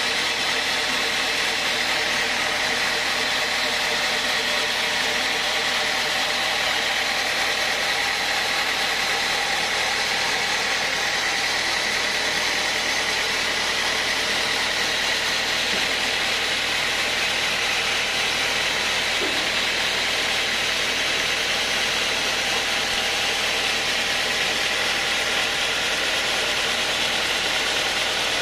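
Large horizontal band sawmill running steadily as its blade rips lengthwise through a teak log: a constant machine drone with a steady high whine, unchanging throughout.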